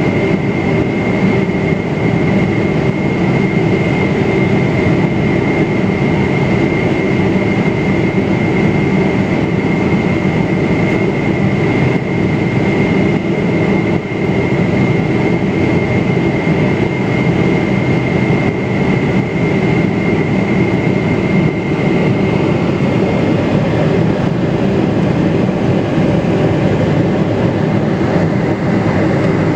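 Steady cabin noise of a Boeing 777-300ER on approach, heard from a window seat beside its GE90-115B engine: a loud, even rumble of engine and airflow with a steady high whine that weakens a little after about twenty seconds.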